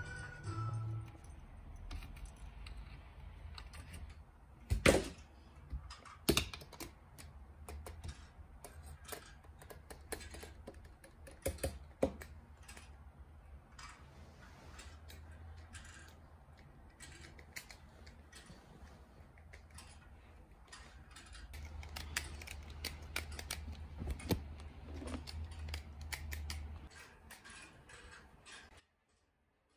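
Scattered light clicks, taps and scrabbling from a kitten playing with a string toy, its paws and claws on a hard floor and a table, with a few sharper knocks.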